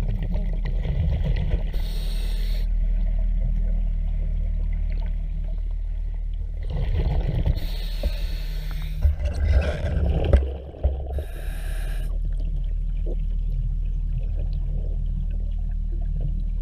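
Diver breathing through a regulator underwater: bursts of exhaled bubbles rushing out several times over a steady low hum.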